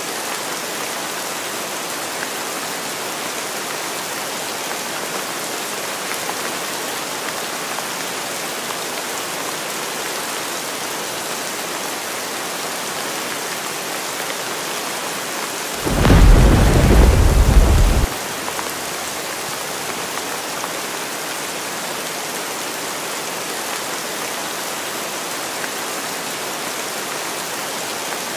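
Heavy rain falling steadily as an even hiss. About halfway through, a loud, deep clap of thunder rumbles for about two seconds and cuts off suddenly.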